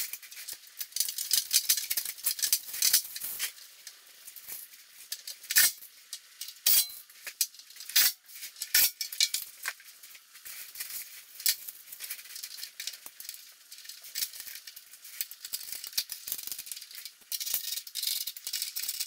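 Plastic bubble-wrap packaging crinkling and rustling as it is handled, with a scatter of sharp clicks and snaps.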